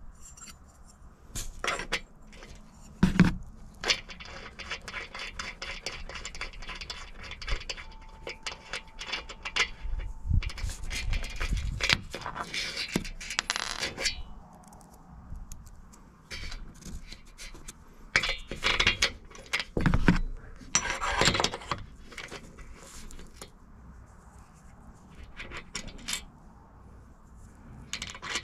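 Aluminum Z bracket, bolt, washers and nut clinking and scraping against an aluminum solar-panel frame as they are fitted by hand: irregular sharp clicks with several louder clatters.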